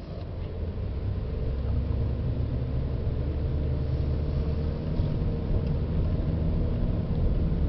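A 2004 Toyota Crown (S180 'Zero Crown') being driven: a steady low rumble with a hum running through it, growing over the first second and then holding. This is the abnormal noise that the car often made when driven.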